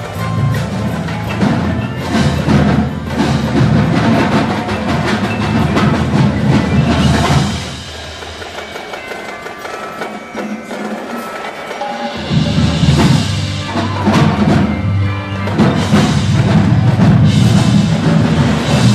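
Indoor percussion ensemble playing: marching bass drums, marimbas and other mallet keyboards, and cymbals. About seven and a half seconds in the low drums drop out for a quieter passage, and the full ensemble comes back in about twelve seconds in.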